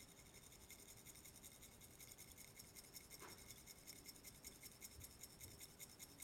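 Near silence, with a faint rasping of dried seasoning being shaken from a plastic spice shaker.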